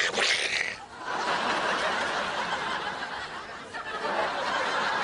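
Sitcom studio audience laughing, a dense sustained wave of laughter, after a brief loud noise right at the start.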